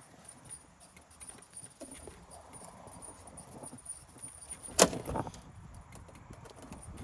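Small metal hardware being handled on a door lock while hunting for a screw hole: light clicks and rattles, with one sharp knock just under five seconds in and a smaller one just after.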